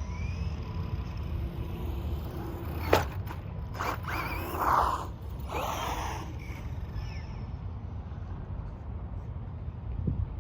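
Small electric RC monster truck driving over dirt: a sharp knock about three seconds in, then a couple of seconds of scraping and a whining motor, over a steady wind rumble on the microphone.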